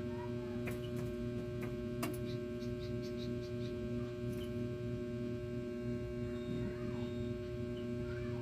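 Steady electrical hum, with a few faint bird chirps and a handful of light clicks over it.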